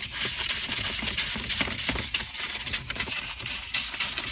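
Detailing brush scrubbing foam cleaner into the cracks of a car's plastic console: rapid, irregular scratchy rubbing.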